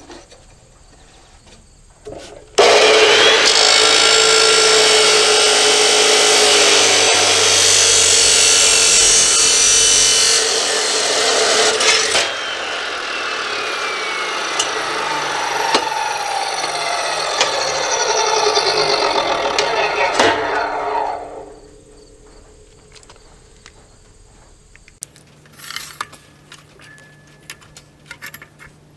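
A 15-amp, 14-inch abrasive cut-off saw starts about two and a half seconds in, and its abrasive wheel grinds through square steel tubing. From about twelve seconds in, the motor winds down in falling pitch and dies away after about twenty seconds. A few light metal knocks follow near the end.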